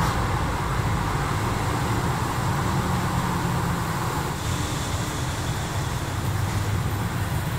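Steady low rumble with a hiss over it, an even background noise without breaks or distinct events.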